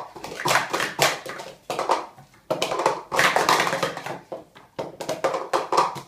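Plastic Speed Stacks cups clattering in rapid, continuous clacks as two stackers work a doubles cycle together, stacking and unstacking the cups on a stacking mat.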